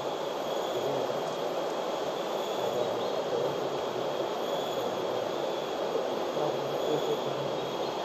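Steady rushing noise with no change in level, with a faint thin high whine held above it.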